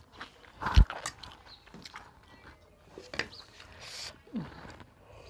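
Eating sounds: fingers mixing rice and greens on a steel plate, with a sharp knock about a second in. Near the end, liquid poured from a small bowl onto the plate.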